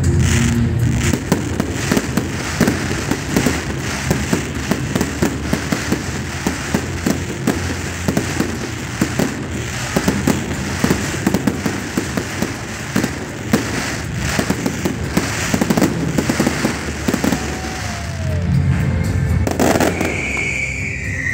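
Fireworks display: a dense run of sharp bangs and crackling from bursting aerial shells.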